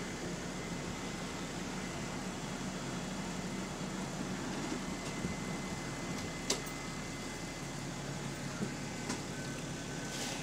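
Stationary London double-deck bus idling: a steady low engine hum with a faint high whine, and a single sharp click partway through.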